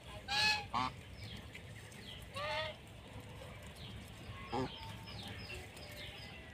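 Domestic geese (brown Chinese type) honking while they graze: two loud honks within the first second, another about two and a half seconds in, and a short stuttering call a little past the middle.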